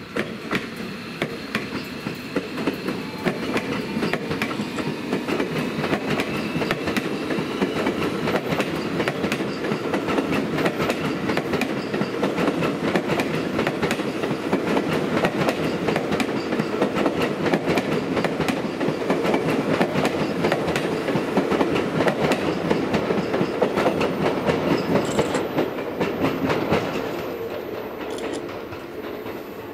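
Seibu 40000 series electric train passing, its wheels clattering rapidly over the rail joints. The sound builds over the first few seconds and fades away from about 26 seconds in.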